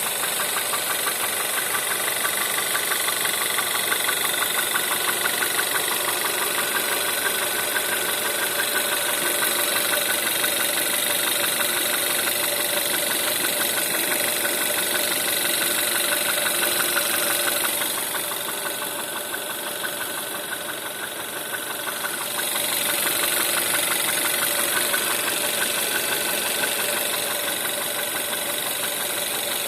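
Volkswagen 1.4 TSI (CAVD) four-cylinder petrol engine idling cold, with a fast, rhythmic knock running through it. This is the cold-start knock the engine is being checked for. The sound dips briefly in the middle, then returns.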